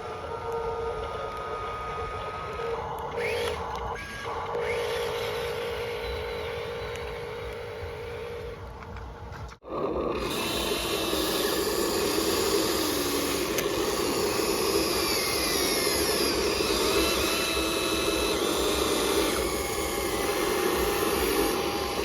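Small electric motors and plastic gearboxes of RC construction models whining as they work, with steady and gliding pitches. The sound cuts off abruptly about ten seconds in and comes back louder and noisier.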